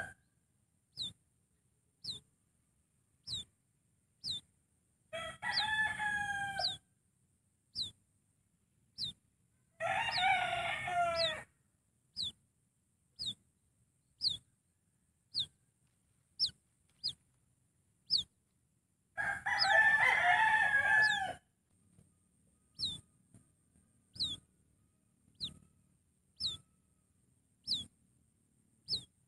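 A rooster crowing three times, each crow lasting one to two seconds. Between the crows a small bird gives a short, high, falling chirp about once a second.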